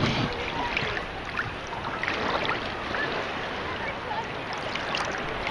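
Steady rushing of wind over the camera microphone, mixed with shallow sea water gently sloshing around people standing in it.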